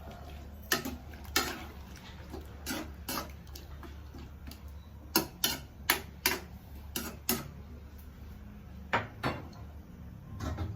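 A spoon stirring a papaya and coconut-milk stew in a pot, clinking against the pot's side at irregular intervals, often twice in quick succession. Underneath is a steady low hum.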